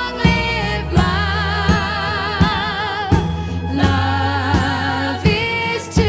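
A woman sings a 1970s pop song over a band backing with a steady drum beat and bass. Her voice carries vibrato on the held notes.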